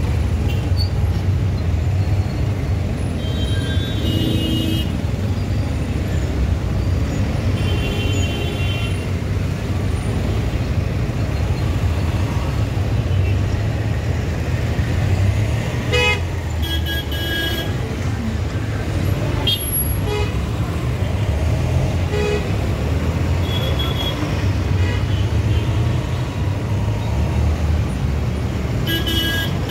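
Steady low rumble of a motorcycle ride through traffic, with short vehicle horn toots five or so times, spread through.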